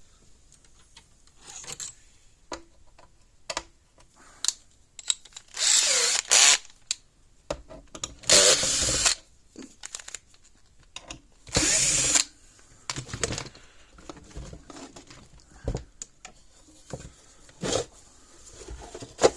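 Cordless power driver whirring in short bursts, about a second each, as it backs screws out of a plastic fence-charger case, with clicks and knocks of handling in between.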